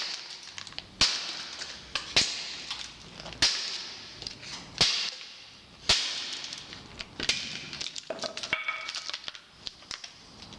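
Hammer blows on a small microwave motor's metal housing to knock it apart, struck about once a second with a sharp ringing clank; the last few hits are lighter.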